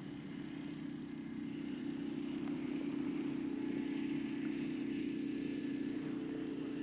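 A steady, distant engine drone that grows louder about two seconds in and then holds.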